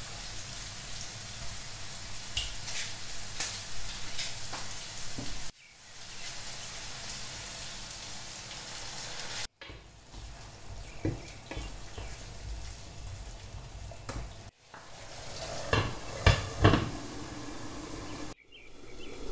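Potatoes and cauliflower with tomato paste sizzling in a non-stick frying pan while a wooden spatula stirs them, with small scrapes and taps. The sound breaks off abruptly several times, and a few loud knocks come near the end.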